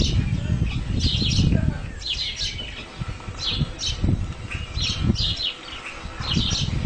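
A small bird chirping in short bursts about once a second, over a low rumble that is strongest in the first two seconds.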